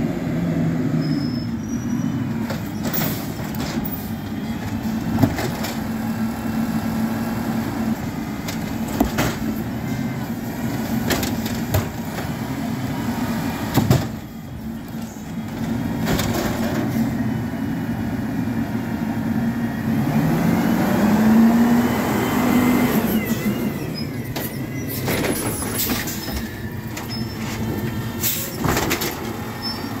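Natural-gas Autocar ACX garbage truck with an Amrep automated side loader, its engine running steadily. The engine revs up in a rising whine about two-thirds of the way through as the hydraulic arm lifts and dumps a cart. Several sharp knocks come from the arm and carts banging.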